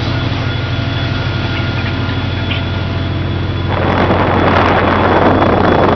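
Fishing boat's engines and deck machinery running with a steady low hum and a thin steady whine. From a little under four seconds in, loud rushing, splashing sea water comes in over the hum as the net is hauled up alongside the hull.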